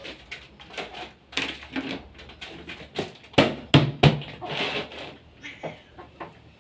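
Chickens clucking in a run of short, irregular calls, loudest about three and a half to four seconds in.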